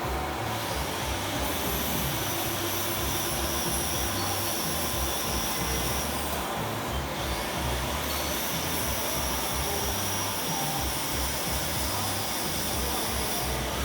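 Metal lathe running steadily, with a high thin whine over the machine's noise that drops out briefly about halfway and then returns.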